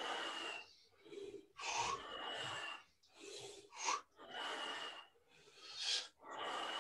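A man breathing hard through the exercise, with about four full in-and-out breaths, some through the nose with a faint whistle.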